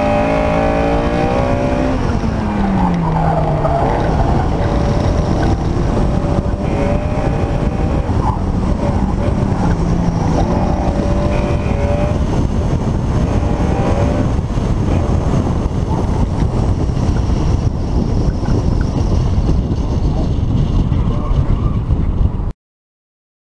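Car engine running hard at high revs on an autocross course, its note dropping about two seconds in as the car brakes, with heavy wind buffeting on the microphone in the open cockpit. The sound cuts off suddenly near the end.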